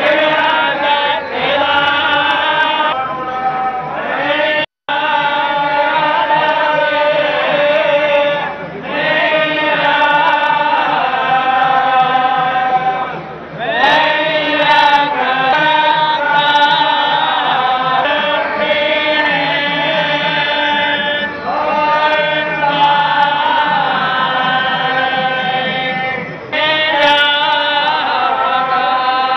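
Group devotional chanting: several voices singing Hindu hymn verses together in long held notes with short pauses between phrases. The sound cuts out completely for a split second about five seconds in.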